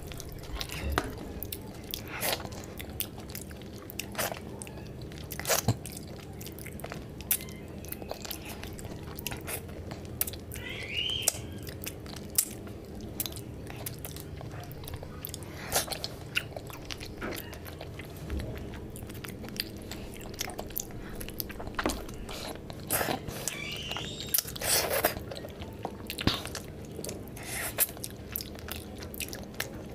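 Close-miked chewing and mouth smacks of a person eating boiled fish curry and rice by hand, with many irregular clicks and a few crunchy bites.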